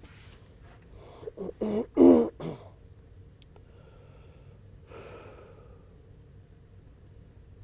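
A person's voice: a few short throat sounds, like throat clearing, starting about a second in, the loudest near two seconds.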